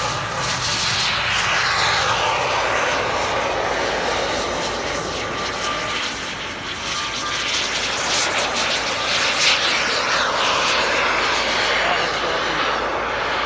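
Large model jet aircraft flying display passes: a steady, loud rushing jet sound that swells and drops in pitch as the model goes by, once in the first few seconds and again about eight seconds in.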